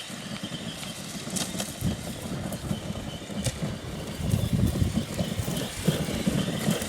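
Large-scale electric RC monster truck driving, its tyres and drivetrain giving an uneven, crackly rumble with scattered clicks, getting louder about four seconds in as it comes closer or speeds up.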